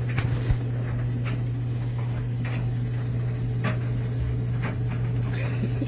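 Scattered knocks and clatter of someone handling things behind a washing machine, about seven in all, over a steady low hum.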